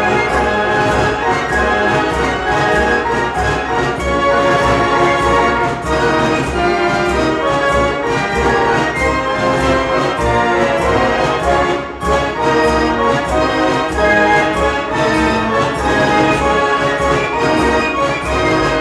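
98-key Marenghi fair organ playing a medley of old popular tunes, with a full band-like sound of many pipes and a steady beat. The playing dips briefly about two-thirds of the way through, then carries on.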